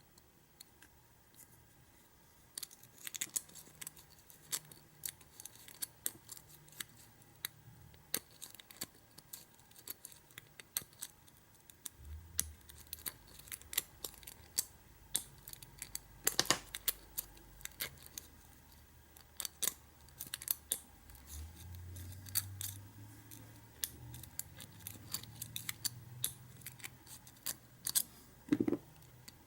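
Irregular small metallic clicks and ticks, with a few louder snaps, from a key blank and tools being worked in an American 600 padlock. A low hum comes in about halfway through.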